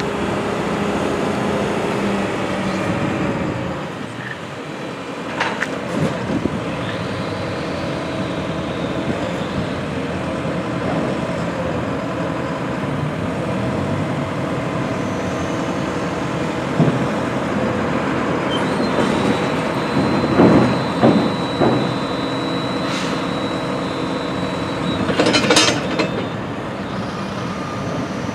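JCB 510-56 telehandler's diesel engine running steadily under hydraulic load as the boom retracts and lowers. There are several sharp clunks along the way, and a thin high whine in the second half.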